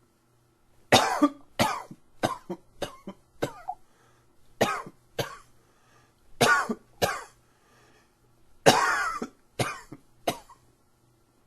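A man coughing in four fits, about a dozen harsh coughs in all: a run of about six, then two, two and three. The coughing is set off by an allergy tickle in the throat.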